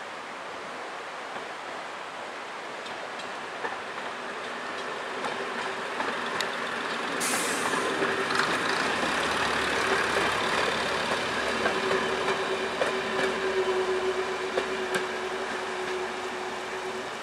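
Class 108 two-car diesel multiple unit passing, its underfloor diesel engines running and its wheels clicking over the rail joints. It grows louder as it approaches, and a steady whine joins as it draws level, with a brief hiss about seven seconds in. It fades a little near the end.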